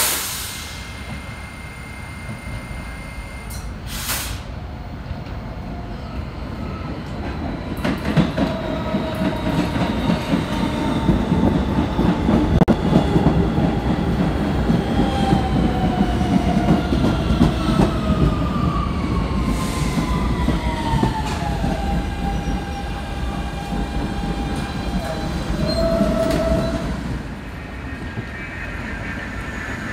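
New York City subway train running in along the platform, its rumble building over several seconds. From the middle on, the wheels squeal in wavering, falling tones, with a short strong squeal just before the sound drops away near the end.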